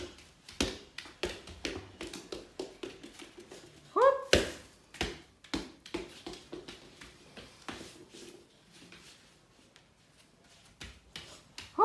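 Irregular knocks and taps of a toddler playing with a ball on a foam play mat: the ball bouncing and being handled, and small feet on the mat. A short rising cry about four seconds in, and the taps thin out near the end.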